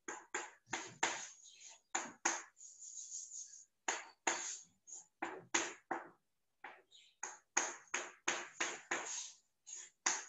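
Chalk writing on a chalkboard: a quick, irregular run of short taps and scratches as boxes and letters are drawn, with a longer, softer scrape about three seconds in.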